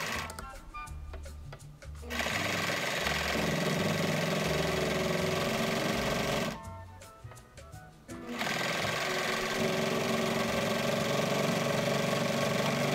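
Electric sewing machine running as fabric is fed through, in two long stitching runs: one from about two seconds in to about six and a half, another from about eight seconds in to the end. Background music plays throughout and is heard on its own in the short pauses.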